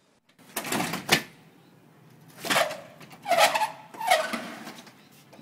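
An aluminium sliding door being slid along its track, giving several short rolling scrapes, with a sharp knock about a second in.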